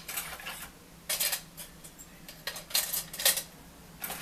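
Disposable plastic forks clattering against each other and against an aluminium soda can as they are dropped in, in about six short bursts.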